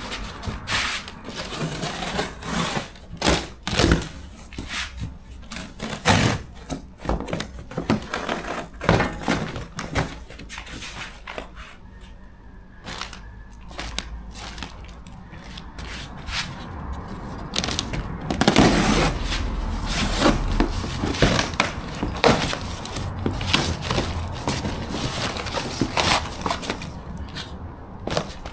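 A large cardboard shipping box being unpacked by hand: crackling tears and rustling of cardboard and packing, broken by many irregular sharp knocks as the box and its contents are handled.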